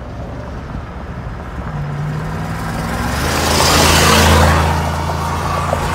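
A motor vehicle passing close by: a steady engine hum with rushing tyre and air noise that swells to a peak about four seconds in, then eases off.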